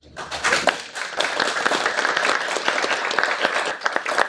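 A small group of people applauding, a dense run of hand claps that starts just after the beginning.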